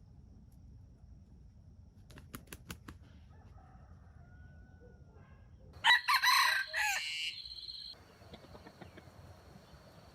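Wild junglefowl rooster gives a few short clucks, then about six seconds in one loud crow lasting about two seconds.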